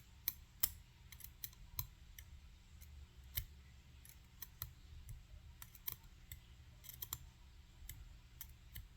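Faint, irregular small clicks and taps of the disassembled Assa 700 pin-tumbler lock core being handled and turned over.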